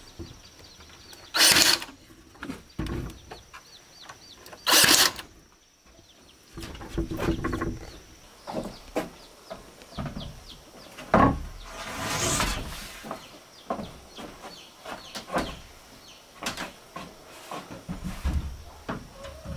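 Electric nail gun firing twice, a few seconds apart, each shot a sharp loud crack. After that come scattered knocks, clicks and rustling of things being handled on a wooden floor, with birds chirping in the background.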